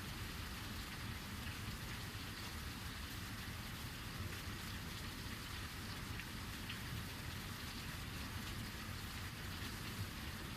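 Heavy rain falling steadily: an even, unbroken hiss of rain on surfaces, with a low rumble underneath.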